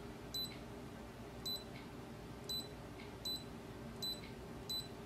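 Epson XP-8700 printer's touchscreen control panel beeping each time its scroll arrow is pressed: six short high beeps, about one a second.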